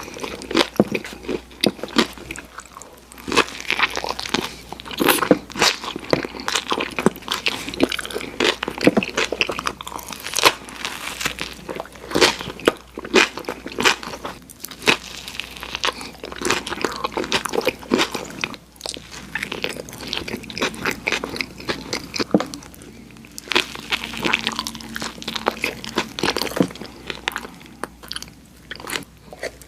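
Close-miked bites into a footlong Subway tuna sandwich: the bread crunches and crackles as it is torn off, with wet chewing in between.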